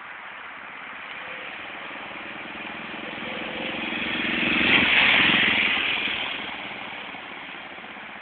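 BMW R90/6 motorcycle's air-cooled flat-twin engine running as the bike rides past, getting louder to a peak about five seconds in and then fading away.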